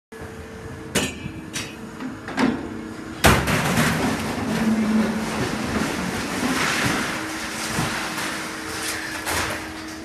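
Grapple of a Sennebogen 821 electric material handler biting into a scrap-metal pile: a few sharp metal clanks, then a loud crash about three seconds in and several seconds of scraping, rattling scrap, with more clanks near the end. A steady machinery hum runs underneath.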